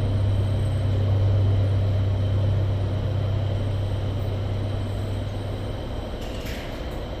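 A steady low machine drone that weakens about six seconds in, with a brief rattle near the end.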